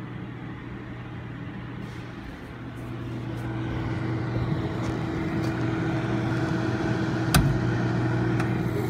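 A microwave oven running: a steady electrical hum with its cooling fan, which grows louder from about three seconds in as the microphone comes close to its vents. A single sharp click comes about seven seconds in.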